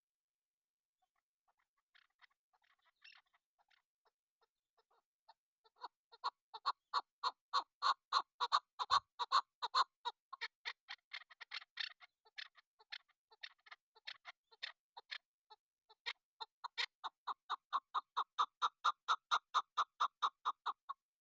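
Chukar partridge calling: a few faint notes, then a long, fast run of short clucking calls, about three a second, that falters briefly about two-thirds of the way through and then picks up again.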